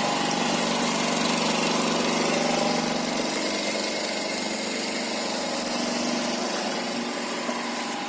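Drive motor of a homemade workshop machine running steadily: a constant mechanical hum with a whine and a hiss, easing slightly about three seconds in.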